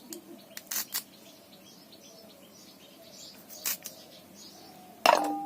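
A few light clicks over faint bird chirps, then near the end a sudden loud clank of a metal kitchen utensil that rings on and fades.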